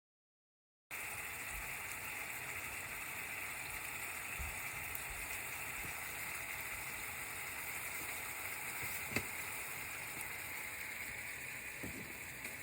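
Food sizzling steadily in a hot frying pan, starting after a brief silence about a second in, with a couple of faint clicks.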